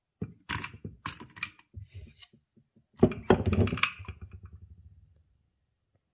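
A used aluminium coffee capsule dropped into a glass jar of spent capsules, clinking against the glass and the other capsules. About three seconds in, the jar's lid is set on with a loud clatter and rattles on the rim as it settles, the rattle fading over about a second.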